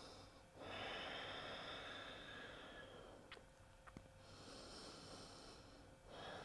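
A person breathing slowly and deeply close to a microphone: a long breath, a quieter pause with two faint clicks, then another breath starting near the end.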